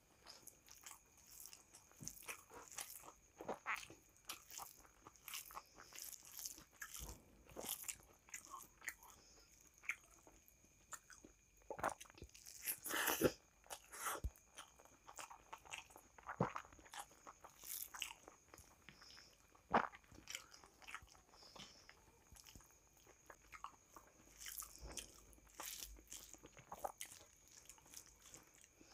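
Close-up sounds of a person eating rice with dal and mashed vegetables by hand: chewing with irregular wet mouth clicks, the loudest about thirteen seconds in.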